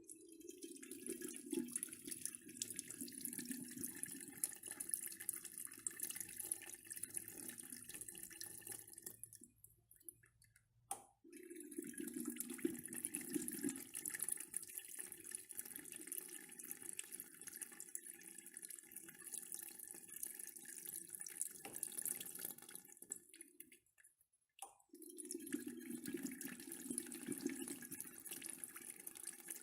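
Urinal flush valve worked by push button, three times: each press gives a click, then a rush of water that runs for about ten seconds and tapers off before the next press.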